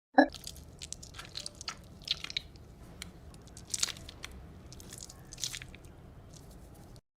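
Kinetic sand being squished and crunched: an irregular run of soft crackly clicks and crunches.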